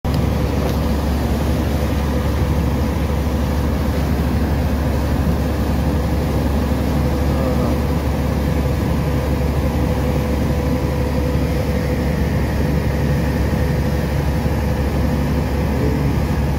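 A boat's engine running steadily under way, heard on board, a constant low rumble with a steady hum above it and the hiss of water churned up in the wake.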